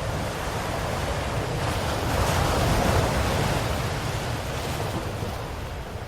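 Ocean waves breaking on a shore: a wash of surf swells up to a peak about halfway through, then ebbs away.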